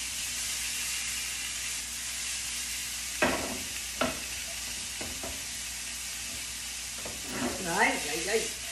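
Green beans with chopped ginger and garlic sizzling steadily in oil in a stainless-steel frying pan on a gas burner. A utensil stirring them clicks against the pan a few times partway through.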